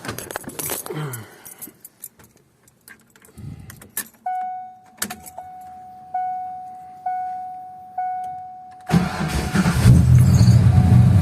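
Keys jingle at the ignition, then a dashboard chime dings about once a second. About nine seconds in the cold engine starts on its stock starter without the no-start clicking, which points to the ground-wiring fix working. It settles into a loud, steady run.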